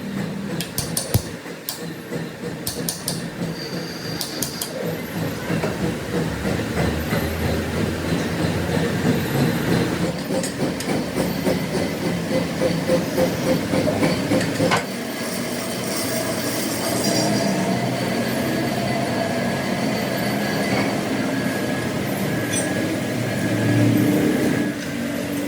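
Metalworking machinery running in a workshop: a rhythmic clatter pulsing about two to three times a second, which changes suddenly about halfway through to a steadier running noise.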